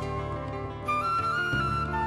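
Instrumental music: a held melody line that moves to new, higher notes about a second in, over sustained bass notes.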